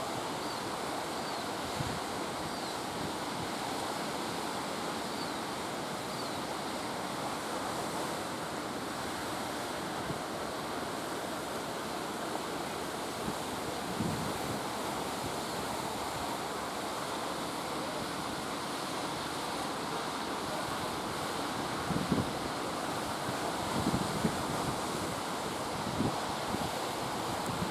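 Storm surf breaking in a steady, continuous rush of noise. Brief bumps of wind buffet the microphone a few times, mostly in the second half.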